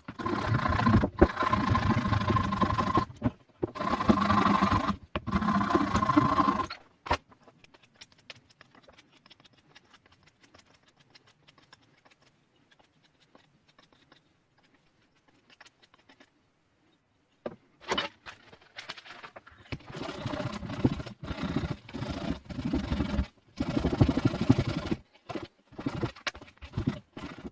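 Electric woodworking power tool cutting or sanding the walnut wood in loud stretches, three near the start and several choppy ones near the end, with a quiet gap in between.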